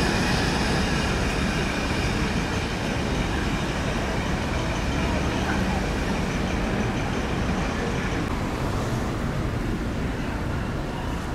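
Steady street traffic noise: a low rumble of vehicles with a hiss over it, easing slightly toward the end.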